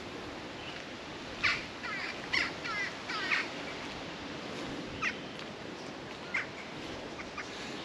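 Birds calling: a run of short calls in quick succession between about one and a half and three and a half seconds in, then a few single calls spaced out later, over a steady faint background hiss.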